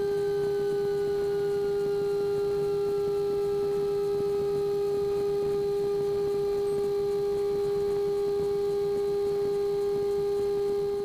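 Piper Lance cockpit during the landing rollout: the engine runs at idle under a loud steady hum tone, with a fainter whine that slowly falls in pitch as the aircraft slows.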